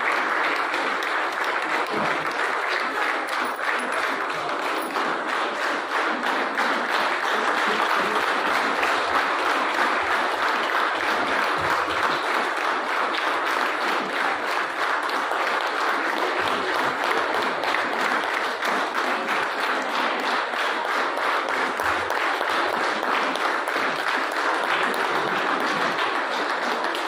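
Audience applauding, many hands clapping in one steady, unbroken round.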